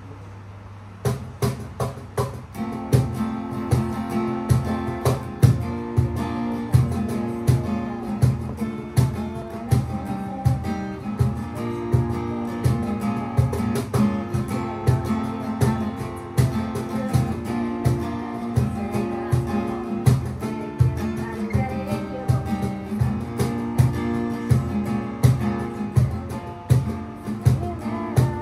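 Steel-string acoustic guitar strummed in rhythm over a steady cajón beat, starting about a second in.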